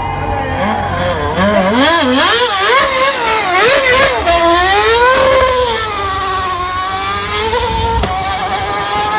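Williams 2011 Formula 1 car's Cosworth V8 engine revving hard with rapid up-and-down throttle swings, then pulling away with a steadily rising note and a brief break for a gear change about eight seconds in.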